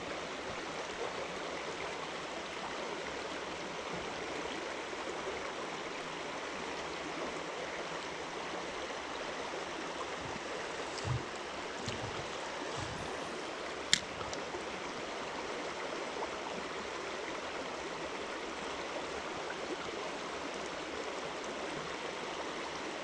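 Steady rushing of a fast stream current running over riffles. A single sharp click comes about two-thirds of the way through.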